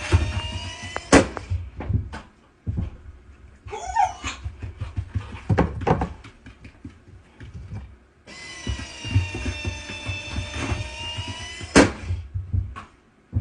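Automatic dog ball launcher whirring, then firing a tennis ball with a sharp snap about a second in. Between throws there are knocks from the dog and the ball, and a short sound from the dog. Near the end the launcher whirs again and fires with another snap.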